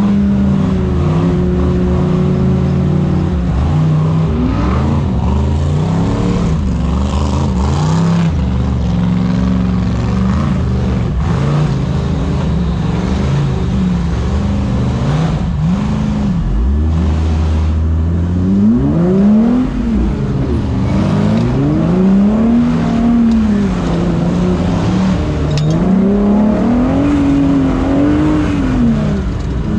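Off-road race vehicle's engine revving up and down over and over, the rises and falls coming closer together in the second half, over a steady low drone.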